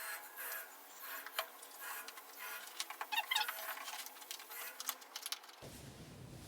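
Hands handling a boxed microphone set and its packaging: light scratchy rustling, scraping and small clicks, irregular and close.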